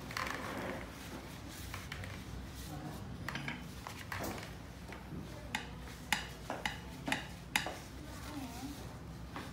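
A run of light, sharp clicks and clinks, like small hard objects knocking together, about six of them between five and eight seconds in, over low room noise.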